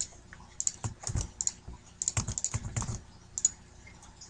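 Computer keyboard typing in two short flurries of keystrokes, then a single click near the end.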